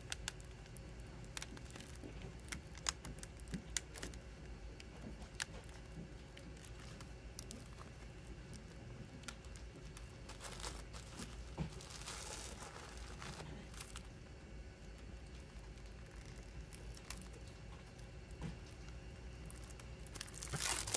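A shrink-wrapped CD case and its packaging being handled: scattered small clicks and crinkles, with a longer plastic rustle about twelve seconds in and another near the end. A faint steady low hum runs underneath.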